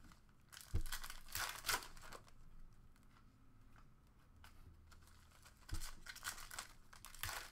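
Foil trading-card pack wrappers being torn open and crinkled by hand, in two bursts: one about a second in and another near the end, with a few soft knocks among them.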